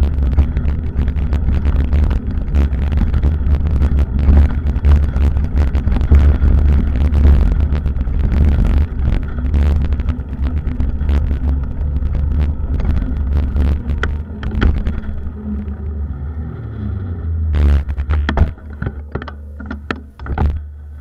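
Wind buffeting the microphone of a camera mounted on a moving bicycle, a loud low rumble, with rattling clicks from the mount over the road surface. It dies down over the last few seconds as the bike slows toward a stop, leaving a few separate clicks.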